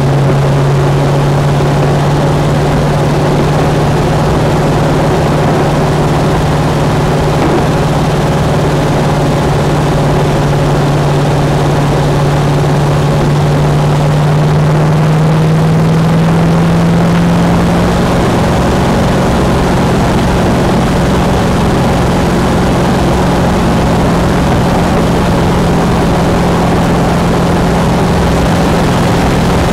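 Superlite SLC's engine running at cruise, heard from inside its engine bay under a loud, steady rush of wind and road noise. The engine's low hum rises slightly in pitch about halfway through and then holds steady at the new speed.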